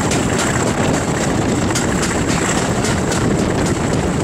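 Class 37 diesel locomotive's English Electric V12 engine running steadily under power on a moving train, with a thin steady high whistle over the rumble and wind buffeting the microphone.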